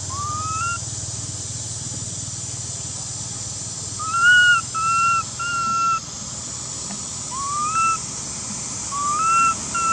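Baby long-tailed macaque crying: short, high, whistle-like calls, some rising in pitch. They come in groups: one at the very start, three in a row about four seconds in, and more toward the end.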